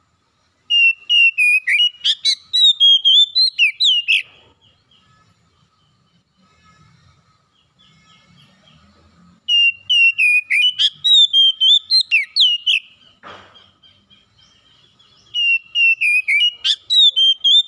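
Oriental magpie-robin singing: three bursts of rapid, varied whistled song, each a few seconds long, starting about a second in, near the middle and near the end.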